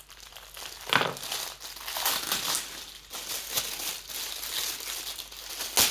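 Plastic packaging crinkling and crackling as it is handled and opened, in irregular bursts with a sharp louder crackle about a second in and another near the end.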